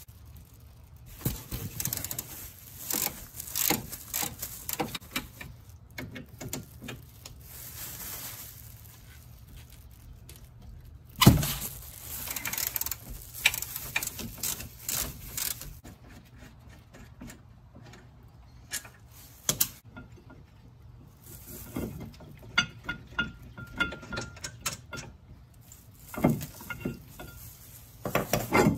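Hand-tool work on a car's rear disc brake: a socket wrench loosening the caliper bracket bolts, with irregular metal clicks and clanks as the tools and bracket are handled. One loud metal knock comes about eleven seconds in.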